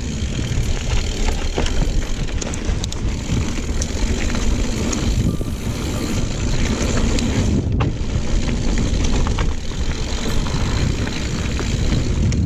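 GT Aggressor Pro mountain bike rolling fast down a dirt trail: heavy wind rumble on the microphone over the hiss of knobby tyres on dirt, with scattered sharp clicks and rattles from the bike over bumps.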